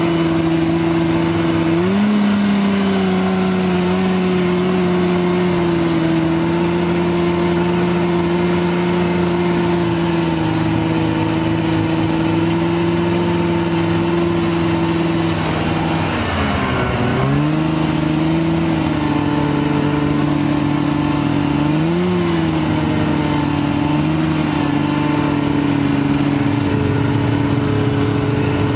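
Polaris snowmobile engine running at a steady cruising pitch, with a rush of track and wind noise. The engine pitch dips sharply as it slows a little past halfway, climbs back, then blips up briefly twice near the end.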